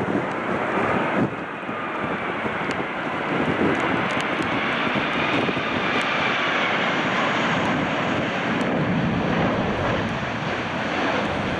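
Jet airliner on landing approach passing close overhead, its engines giving a steady rush with a whine that rises and then falls as it goes by, over wind buffeting the microphone.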